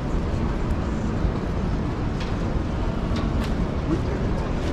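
Large exhibition hall background: a steady low rumble, with a few faint clicks and a brief distant voice near the end.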